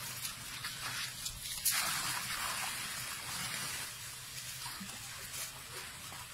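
Light splashing and dripping of water at a baby elephant's bathing tub, with a brief louder splash about a second and a half in, over a steady outdoor hiss.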